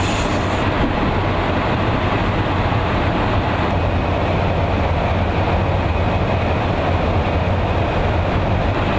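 Steady in-flight noise inside a KC-135 Stratotanker: a constant low hum under rushing air, with no change in level.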